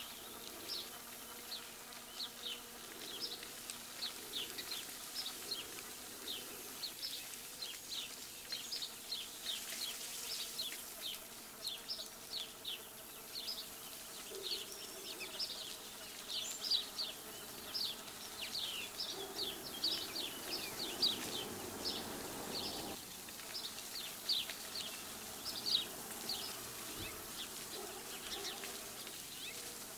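Small birds chirping: a dense, irregular run of short, high chirps, several a second.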